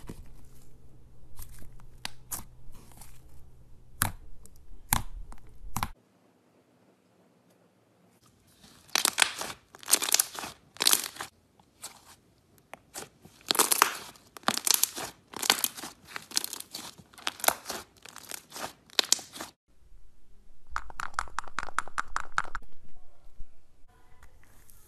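Thick slime being pressed, poked and stretched by hand, making sticky clicks and clusters of crackling, tearing snaps. There is a short stretch of near silence partway through, and a denser steady crackle near the end.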